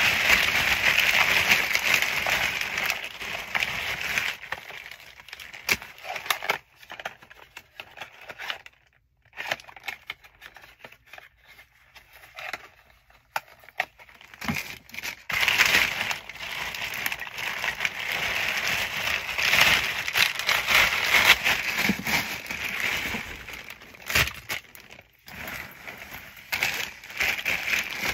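Clear plastic bag crinkling and rustling as supplies inside it are handled. It comes in bursts, with a quieter stretch in the middle.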